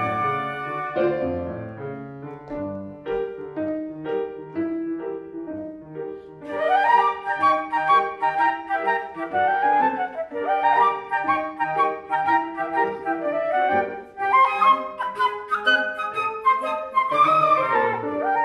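Flute trio with grand piano accompaniment playing live. A quieter passage gives way about six seconds in to louder flute lines with quick runs and upward slides.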